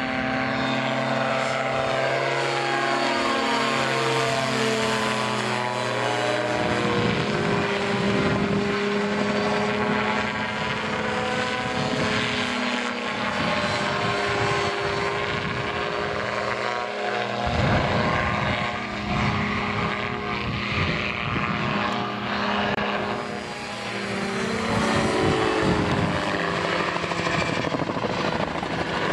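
Aviomania G1sa Genesis Solo gyroplane flying past: the steady drone of its engine and pusher propeller, with the pitch sliding down twice as it passes by.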